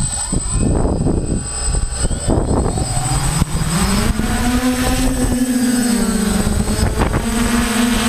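Electric multirotor motors and propellers of a Gaui 540H spinning up for takeoff, heard from a camera on the aircraft: the rotor hum rises in pitch about three seconds in and then holds steady, over heavy rumbling wind and propeller wash on the microphone and a thin high whine.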